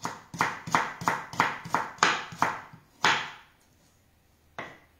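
Kitchen knife slicing an artichoke thinly on a wooden cutting board. A quick run of about eight chopping strokes, roughly three a second, is followed by two more spaced apart, the last near the end.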